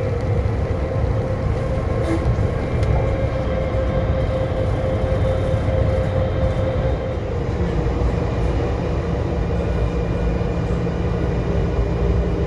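Siemens VAL 208 rubber-tyred automated metro car heard from inside while running: a steady rumble with a motor whine that drops slightly in pitch about seven seconds in.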